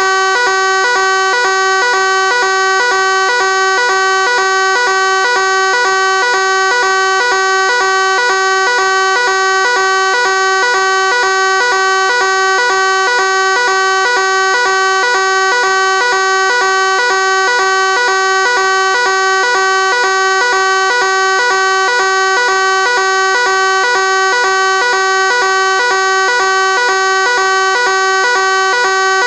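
Fire alarm sounding continuously: a loud, steady buzzing tone that holds one pitch without rising, falling or pausing.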